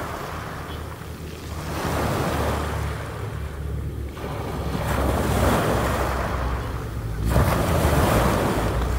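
Sea waves washing onto a pebble beach, swelling and falling every few seconds, with wind rumbling on the microphone.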